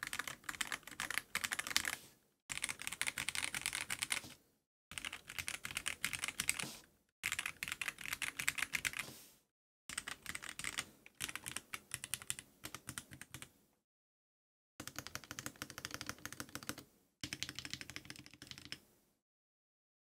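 Typing on an MW65 (Cheap 68) gasket-mount custom mechanical keyboard in a clear acrylic case: fast runs of keystrokes about two seconds long, with short silent gaps between the runs.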